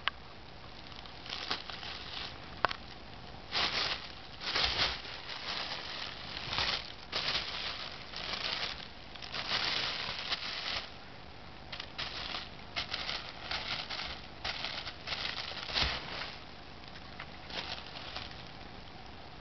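Thin plastic bag crinkling and rustling in irregular bursts, some short and some lasting about a second, as a cat paws at it and pushes her head into it.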